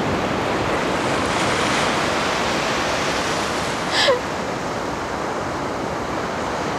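Steady rush of surf. About four seconds in, a woman's voice gives one short cry that falls in pitch.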